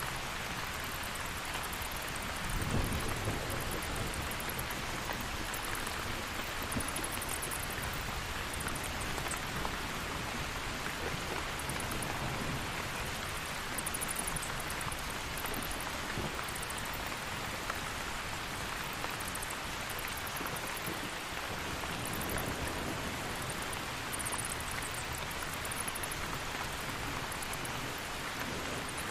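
Steady heavy rain falling, with a brief low rumble of distant thunder about three seconds in.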